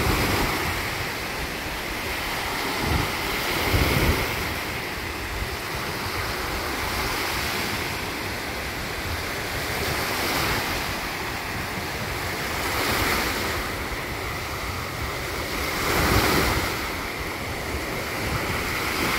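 Small lake waves breaking and washing up onto a sandy, pebbly shore: a steady rush of surf that swells every few seconds as each wave comes in. Wind buffets the microphone, with low thumps a few seconds in and again near the end.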